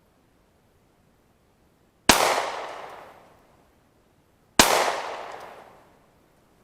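Two 9mm pistol shots from a Taurus PT709 Slim, about two and a half seconds apart, each followed by an echo that fades over about a second and a half.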